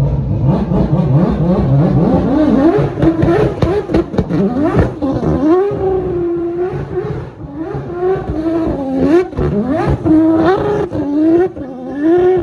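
Rotary-engined McLaren P1 drift car's engine revving up and down over and over as it drifts, the pitch swinging every second or so, with many sharp cracks between the throttle blips.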